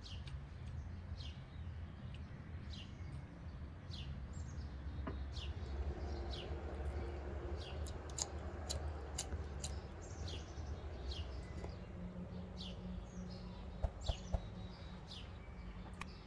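Small birds chirping over and over, each chirp short, high and falling, over a steady low background hum; two sharp clicks stand out near the end.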